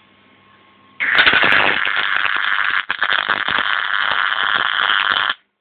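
MIG welding arc crackling and sputtering for about four seconds, starting abruptly about a second in, with a brief break partway through. The instructor afterwards says the torch was held way too high.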